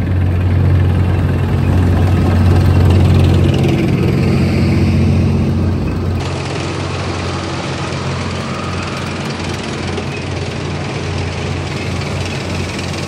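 Column of tracked main battle tanks passing close by, their heavy engines running with a steady deep hum under the noise of the tracks. The sound eases slightly about six seconds in.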